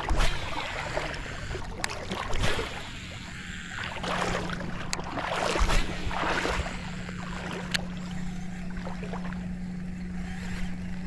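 Water splashing and sloshing against a kayak in a shallow river, in several loud swells. A steady low hum comes in about four seconds in.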